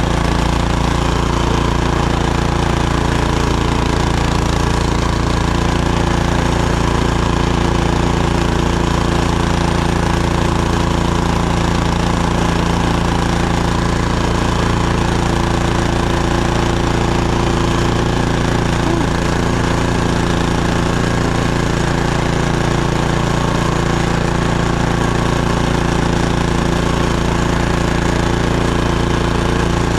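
Snowblower's small gasoline engine running steadily under load, loud and unbroken.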